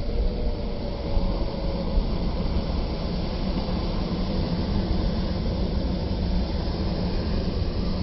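Ocean surf at the shoreline: small waves breaking and washing in, a steady rushing noise with a low rumble.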